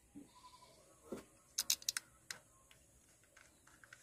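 A few light, sharp clicks and knocks, most of them bunched together about a second and a half in.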